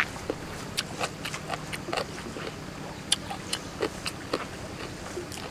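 Close-up mouth sounds of a person chewing a mouthful of raw beef: irregular wet smacks and clicks, several a second.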